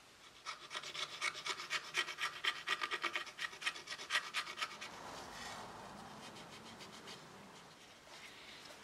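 Hobby-knife blade scraping in the inside corner of a wooden mirror frame along the glass edge, in quick strokes several a second. About five seconds in it gives way to a softer, steady rubbing, a cloth wiping the corner.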